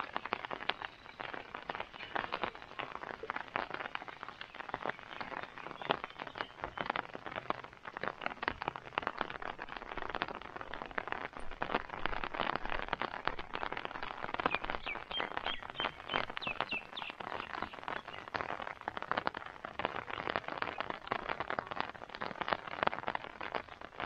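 Rain falling, a dense steady patter of drops hitting close by. A bird chirps a few times about two-thirds of the way through.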